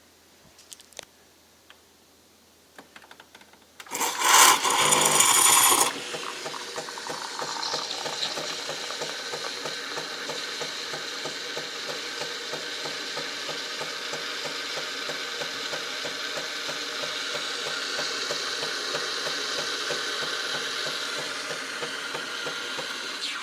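Jura Impressa C5 bean-to-cup espresso machine at work. After a few faint clicks, a loud burst lasts about two seconds, then the machine settles into a steady running hiss with a fast, even pulsing beneath it.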